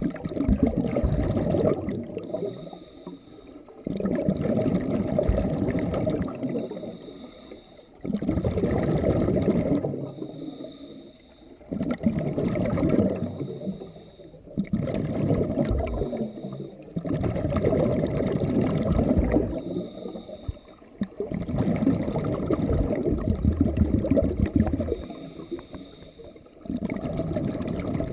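Scuba diver breathing through a regulator underwater, about seven breaths. Each exhale is a long burst of bubbling. Each inhale is a quieter hiss with a faint high whistle.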